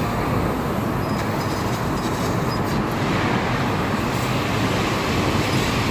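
Steady machine noise, a continuous rumble and hiss with no clear rhythm or changes.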